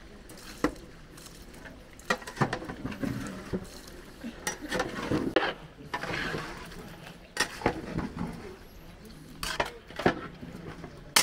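Metal cooking pots and utensils clattering: irregular knocks and clinks, some ringing briefly.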